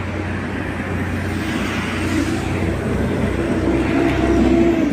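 Road traffic. A passing motor vehicle's engine gets louder over the second half, and its tone drops in pitch as it goes by near the end.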